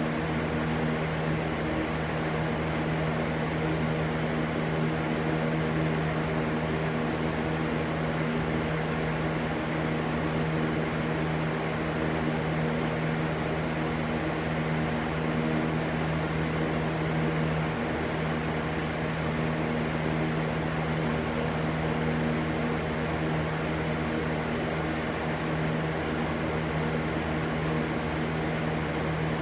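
Steady rushing white noise with a constant low hum under it, unchanging throughout.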